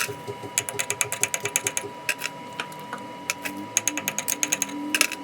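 Rapid, uneven metallic clicking from metalworking on a shaft, several clicks a second, over a steady high whine; a lower hum rises in pitch about three seconds in.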